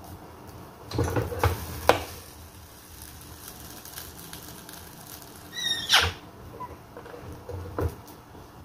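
Electric dough press being worked by hand: a few knocks and clatters of its hinged metal lid and handle against the plate as dough balls are set down and pressed flat, the loudest just before six seconds in.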